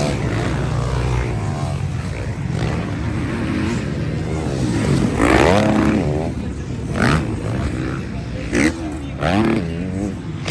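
Motocross motorcycle engines racing, revving up and down in pitch, with the strongest rev about five seconds in and short sharp throttle blips near the end.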